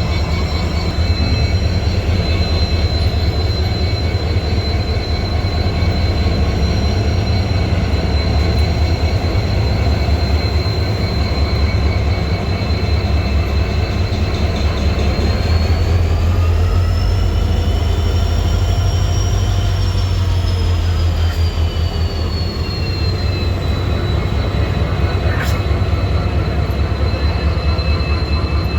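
Twin EMD WDG4 diesel-electric locomotives with two-stroke EMD 710 engines humming steadily under load while pushing a goods train back. A thin high whine rides over the deep engine hum, rising in pitch about halfway through and sliding back down a few seconds later.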